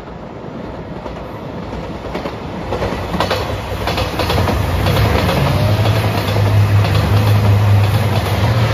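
JR Shikoku 2700 series diesel limited-express train passing close by, growing louder as it nears: the diesel engines' low drone builds and wheels clatter over the rail joints.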